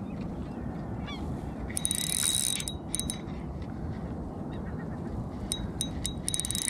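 Spinning reel's drag giving line to a hooked sea trout in bursts: a long run about two seconds in, a few short ticks around three seconds, and more line pulled off near the end.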